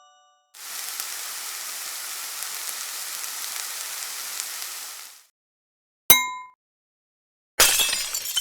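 Stock sound effects played one after another: a steady hiss lasting about four and a half seconds, then a single short clink, then a glass-breaking crash near the end.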